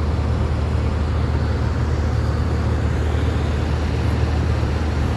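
Airliner cabin noise in flight: a steady low drone of engines and rushing air, unchanging throughout.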